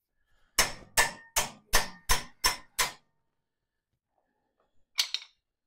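Hammer striking steel hardware seven times in a quick, even run, about three blows a second, with a slight metallic ring: driving a shackle pin while fitting a cultivating disc to a Farmall 140. A brief metallic clatter about five seconds in.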